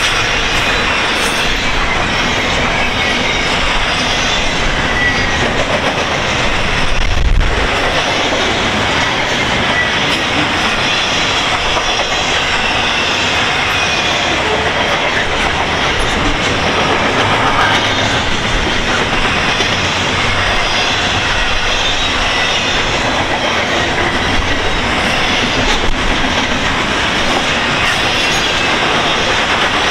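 CN intermodal freight train's well cars rolling past: a steady loud rumble and clatter of steel wheels on the rails, with faint high wheel squeal now and then and a brief low thump about seven seconds in.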